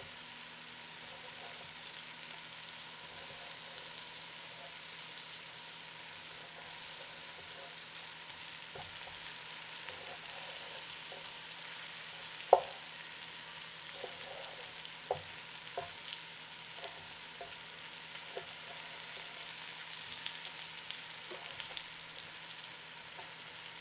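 Floured beef cubes sizzling steadily as they sear in a Ninja Foodi pressure cooker set to high sauté. Scattered knife taps on a wooden cutting board cut through it, the sharpest one about halfway.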